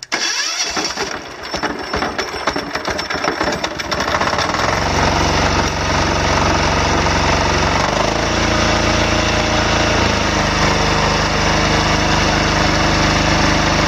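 A brand-new 10 hp single-cylinder air-cooled diesel, a Yanmar clone, is cranked on its electric starter with the compression release used, on its first ever start. It catches after about four and a half seconds of uneven cranking and settles into a steady run, with its speed changing briefly about eight to ten seconds in.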